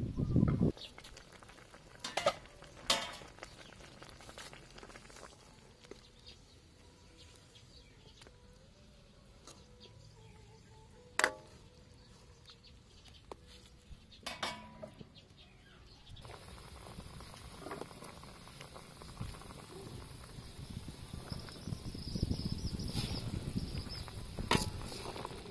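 An aluminium lid set down on a metal wok with a clatter, then a few sharp metal clinks of utensils against the wok. In the second half the broth boils around the pork ribs, a steady bubbling hiss that grows louder near the end.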